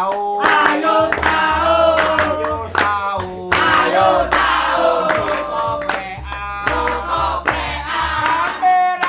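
A group of men and women singing a koprekan song in unison, a Ramadan chant to wake people for sahur, with hand clapping and sharp percussive strikes keeping the beat.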